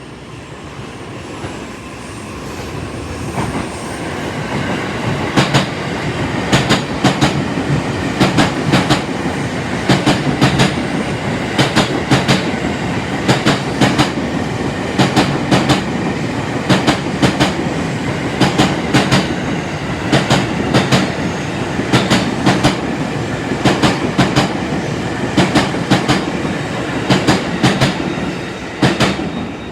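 JR East E257 series electric train passing through a station at speed, its wheels clicking over the rail joints in repeated pairs: clickety-clack as car after car goes by, over a steady rumble. The sound builds over the first few seconds and eases off near the end.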